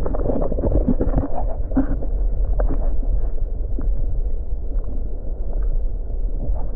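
Muffled rush and gurgle of river current heard through a camera held underwater, with scattered small clicks and knocks.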